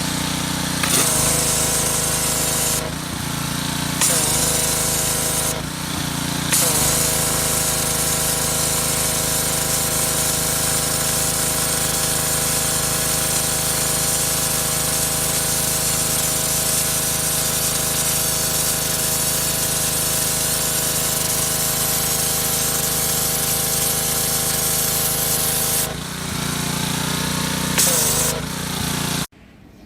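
Pressure washer running: a steady hiss of the water jet over the even drone of its motor and pump. The spray stops for a moment twice in the first few seconds.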